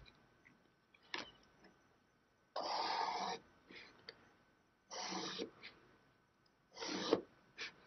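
Sharpie marker drawn along a paper straight edge across sketchbook paper: three separate strokes, each a short scratchy rasp of under a second, with a few light taps in between.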